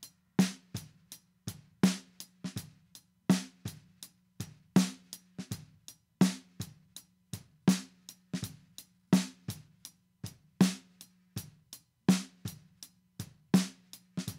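Recorded snare drum track playing a steady groove: a strong hit about every second and a half with quieter ghost strokes between, each hit leaving a low ring. It is played back through a tape-machine emulation plugin, Magnetite, which is switched in partway through to add tape saturation and presence.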